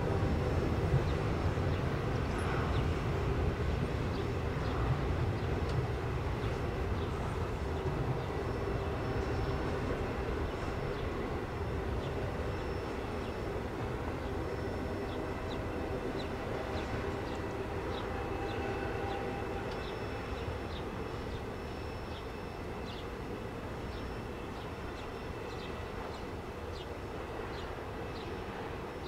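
Intermodal freight train rolling past at a distance: a steady rumble of wheels on the rails with faint thin squeals, slowly fading.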